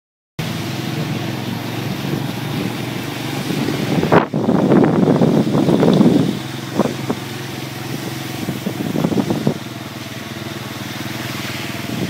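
Motor traffic: a steady engine hum, with a louder vehicle passing close about four to six seconds in.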